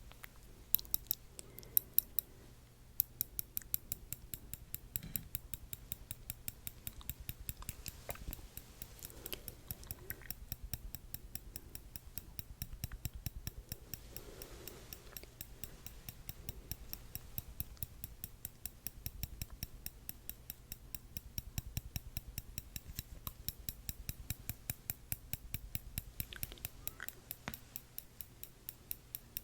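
Metal tweezers tapped and clicked close to the microphone in a rapid, steady run of small sharp clicks, several a second.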